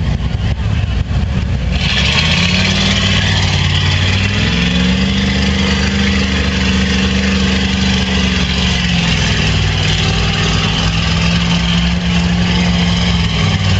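Ford Econoline short bus's engine revved hard and held at high revs while its oversized tyres churn through deep mud, with a hiss of thrown mud and water over it. The revs climb about two seconds in, hold, then ease off a little about nine seconds in.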